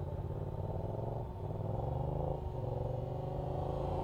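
Electric RC helicopter (T-Rex 450 with a Scorpion brushless motor) in flight: a steady buzzing hum from its main rotor and motor that grows a little louder as it comes closer.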